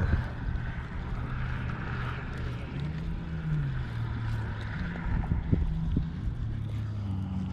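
Engine hum with a low, steady drone whose pitch rises and falls a couple of times, over a hiss of background noise.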